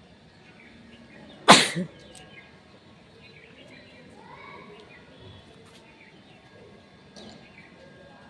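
A woman sneezes once, loudly, about a second and a half in: a sharp burst with a short trailing gasp.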